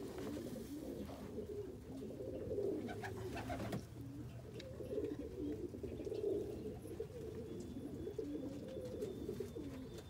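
Lebanon pigeon cock cooing on the nest: a low, wavering coo that keeps going, with a brief knock a little before four seconds in.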